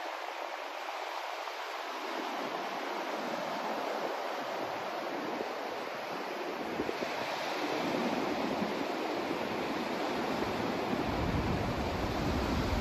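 Steady rushing white-noise ambience, surf-like, swelling slowly, with a deep rumble coming in near the end.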